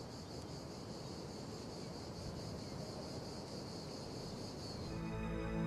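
Steady high insect chirring over a soft noisy hush: a desert ambience bed. About five seconds in it gives way to soft, sustained music chords.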